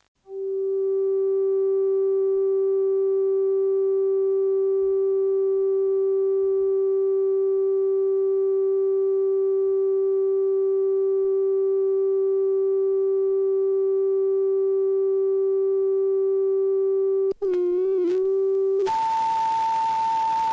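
A steady electronic tone holding one low pitch for about seventeen seconds, as on a channel's off-air signal. It wavers briefly, then gives way near the end to a higher steady tone over loud static hiss.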